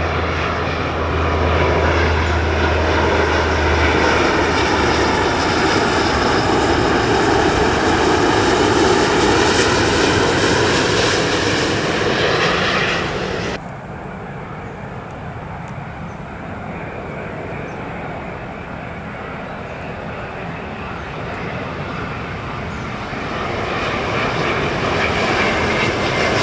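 Airbus A350-941 jet engines (Rolls-Royce Trent XWB) as the airliner passes, loud, with tones that sweep slowly up and down. About halfway through the sound cuts off abruptly to a second A350's engines, quieter at first and growing louder near the end.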